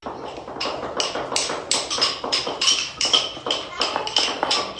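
A quick, uneven run of taps or knocks, about three or four a second, with faint voices underneath.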